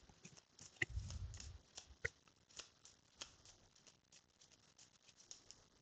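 Oracle cards handled faintly: a few soft clicks and taps in the first couple of seconds as a card is drawn and laid on the spread.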